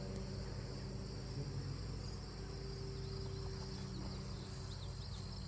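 Insects, crickets or similar, chirring steadily in a high continuous drone, with a low steady hum underneath and a few faint short chirps near the end.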